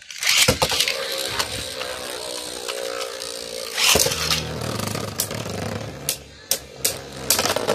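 Two Beyblade Burst spinning tops launched into a plastic stadium with ripcord launchers, then spinning and scraping against each other with a whirring sound that falls in pitch. A loud clack about four seconds in and several sharp clacks after it are the tops colliding.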